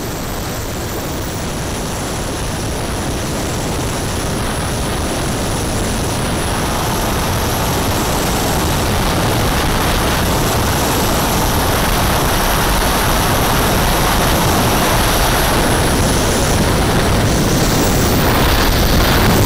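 Gas turbines of a 1/5-scale RC Avro Vulcan heard from a camera mounted on the airframe: a steady rush of wind with thin, high turbine whines that shift in pitch. The sound grows louder as the model flies on.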